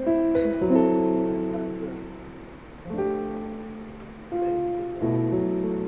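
Slow background piano music: notes and chords struck about once a second, each ringing and fading away.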